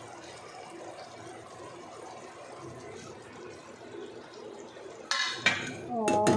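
Curry simmering with a steady low hiss in a steel cooking pot, then about five seconds in a ladle scraping and clanking against the pot as it is stirred.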